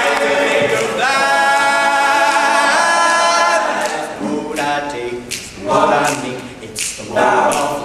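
Male a cappella group singing without words: a chord held for about two seconds, then short rhythmic sung syllables punctuated by sharp clicks.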